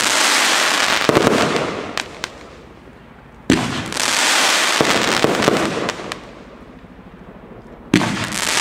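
A 30 mm compound firework cake firing its fanned volleys: each wave starts with sharp launch thumps and runs on as a dense, loud hiss for two to three seconds before fading. One wave is under way at the start, a new one bursts in about three and a half seconds in, and another near the end.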